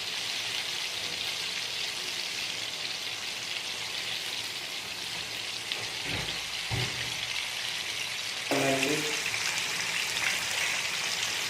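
Chicken pieces deep-frying in hot oil, a steady crackling sizzle, during their first, half fry before a second frying. A couple of low thumps come about six seconds in.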